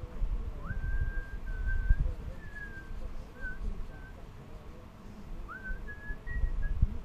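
Clear whistled notes in two short phrases, each opening with an upward slide into a held note, then a few short notes, over a low, gusting rumble of wind on the microphone.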